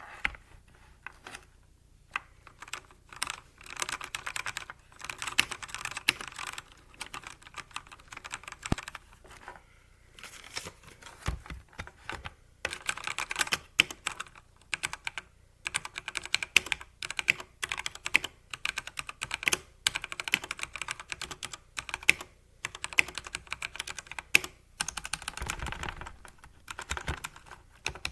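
Typing test on a Newmen GM326X 75% mechanical keyboard fitted with milky yellow linear switches, with PCB tape, PE foam and damping foam mods: fast runs of keystrokes with short pauses between them.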